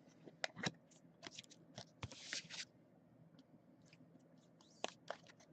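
Faint handling of trading cards: a few light clicks and taps, with a brief rustle about two seconds in.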